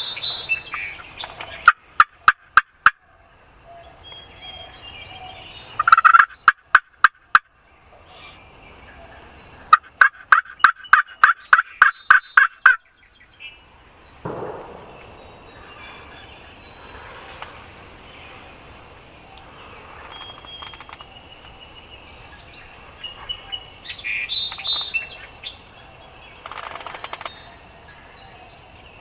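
Wild turkey calls: three loud runs of quick, sharply repeated notes in the first half, then fainter gobbling near the end.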